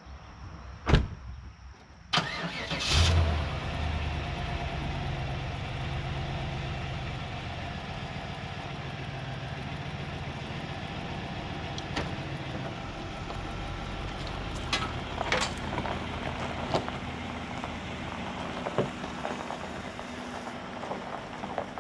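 A car door shuts about a second in, then the Cadillac Fleetwood Brougham's V8 cranks over, catches with a brief loud flare and settles into a steady idle. The car then moves off slowly, with a few sharp ticks and clicks over the engine.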